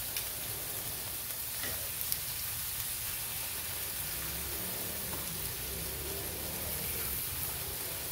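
Raw chicken thighs sizzling on a smoking-hot flat-top griddle, a steady frying hiss, with a couple of light clicks in the first two seconds or so.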